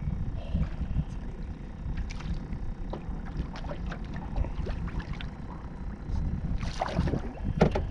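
Steady low rumble of wind and lapping water around a small fishing boat, with scattered light clicks and knocks from handling rods and gear. A brief louder burst comes near the end.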